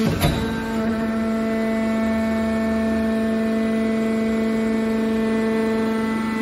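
Hydraulic power unit of a scrap metal baler running: a steady, pitched hum from the electric motor and hydraulic pump. A single sharp clank comes just after the start.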